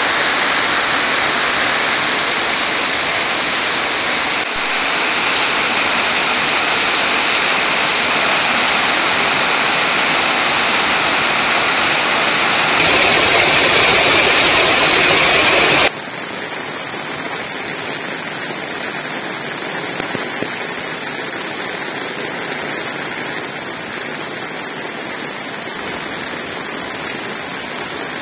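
Heavy rain pouring onto a concrete yard and splashing into a plastic basin, a steady loud hiss. About sixteen seconds in it drops suddenly to a quieter, steady rush of rain and water.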